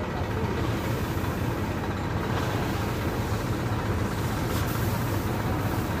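Combine harvester's engine running steadily, a constant low drone with machinery noise over it.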